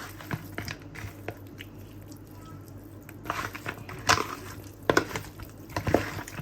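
Wet squishing of raw chicken being mixed by hand in a spice marinade, with a few sharp knocks and clicks against the bowl about four, five and six seconds in.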